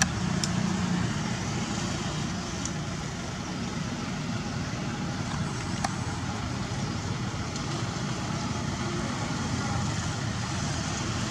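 Steady outdoor background noise with a low rumble, with a few faint sharp clicks, the clearest about six seconds in.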